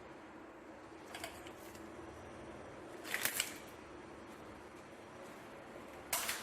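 Handling noises: a few short clicks about a second in, a quick cluster of louder clicks and clinks around the middle, and another sharp click near the end, over a faint steady hum.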